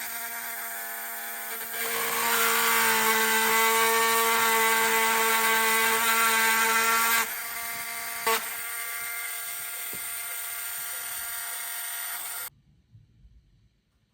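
Dremel rotary tool with a fine engraving bit running at a steady high whine while engraving a Swiss Army knife's handle. It is louder and harsher for several seconds in the middle, has a brief click about eight seconds in, and stops suddenly near the end.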